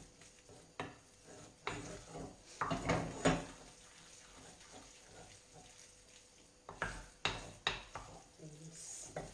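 Potato-and-nduja ravioli filling being mixed in a glass bowl, with irregular knocks and clinks against the bowl, bunched about three seconds in and again around seven seconds.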